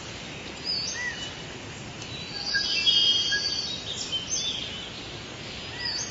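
Songbirds singing and calling over a steady hiss, with a loud run of rapid chirping about halfway through.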